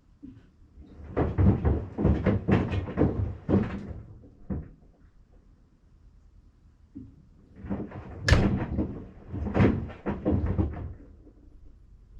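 Sandals knocking and thudding against the inside of a Maytag washing machine during the wash, in two bouts of rapid clattering, each about three seconds long, with a quiet pause between.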